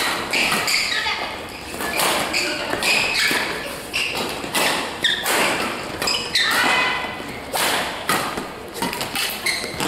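Badminton rally: rackets striking the shuttlecock again and again, with players' shoes thudding and shuffling on the court floor.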